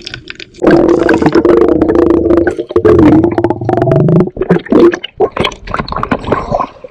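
Stream water rushing and splashing close to the microphone, loud, with a steady hum under it for the first few seconds, then broken into many short splashes and knocks.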